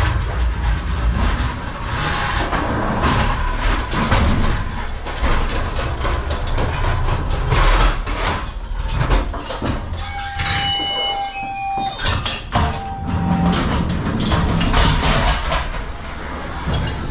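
Pallet jacks rolling over the wooden floor of an empty semi-trailer: a steady rumbling clatter with many knocks, hollow inside the trailer box. A high squeal is held for about two seconds around ten seconds in and comes again briefly a second later.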